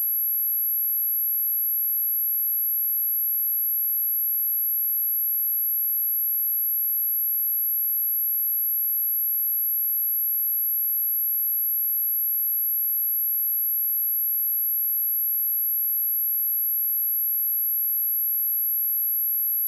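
A steady, high-pitched 11642 Hz sine-wave test tone, one pure tone held at a constant level, played to test a speaker and clear water and dust from it.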